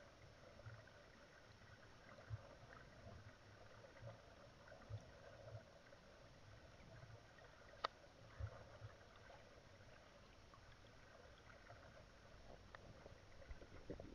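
Near silence from a camera submerged underwater, heard through its housing: a faint steady hum with scattered soft knocks and one sharp click about eight seconds in.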